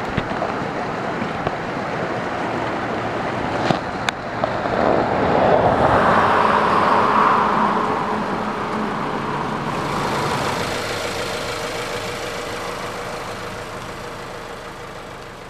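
Road traffic noise: a vehicle's tyre and engine noise swells about five seconds in and then fades slowly away. Two sharp clicks come shortly before the swell.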